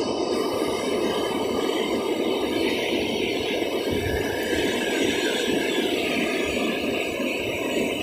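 Mountain river rapids rushing over and around boulders: a steady, unbroken rush of whitewater.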